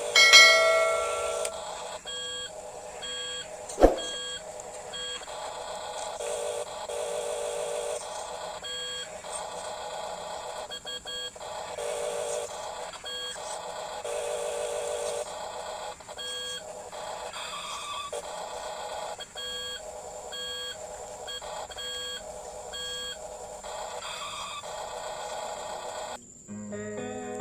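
Electronic beeping tones at several pitches, switching on and off in short blocks, with a single sharp click about four seconds in.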